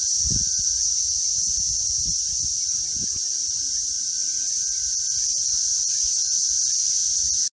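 Steady, high-pitched drone of a tropical insect chorus in the trees, with a fainter steady tone beneath it and occasional low rumbles.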